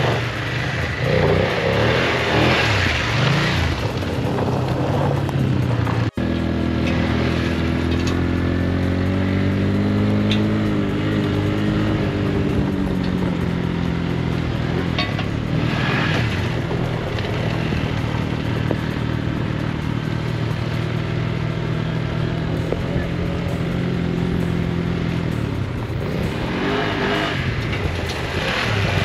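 Motorcycle engine running at fairly steady revs while riding, its pitch drifting gently up and down, with a sudden break in the sound about six seconds in.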